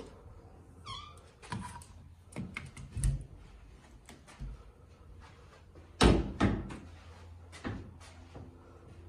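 White built-in wardrobe doors with lever handles being opened: a brief falling squeak about a second in, then a series of latch clicks and knocks, the loudest about six seconds in.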